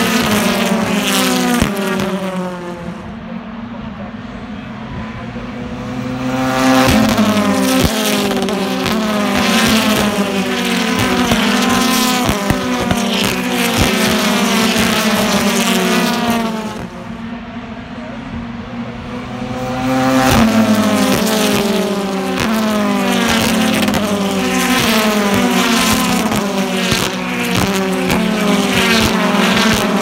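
A pack of British Touring Car Championship cars with 2.0-litre turbocharged four-cylinder engines passes one after another at full throttle. Their engine notes overlap, each climbing and dropping through the gear changes. The sound eases twice as gaps open in the field and swells again as the next group arrives.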